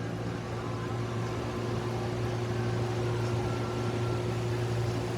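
Blue B2308 box fan running in a window, exhausting air: a steady low motor hum under an even rush of air.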